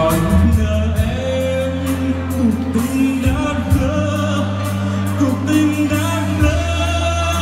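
Live band with a singer performing a Vietnamese pop ballad, with long held bass notes under the sung melody.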